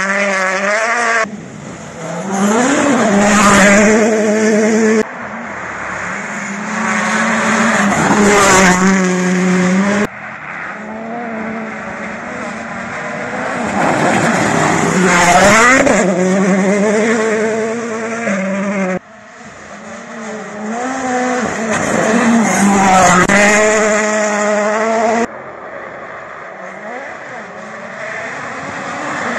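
Rally car engines revving hard, pitch climbing and dropping through gear changes as cars pass by. The sound cuts abruptly from one car to another five times.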